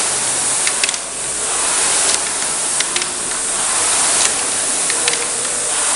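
Concept2 air rowing machine's fan flywheel whooshing, swelling and fading with each stroke about every two seconds, with a light click once per stroke.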